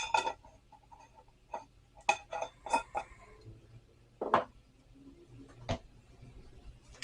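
Measuring spoons and kitchen utensils clinking and tapping against a bowl and dishes while the spices are being measured in: a scattered handful of sharp clinks, several close together in the middle.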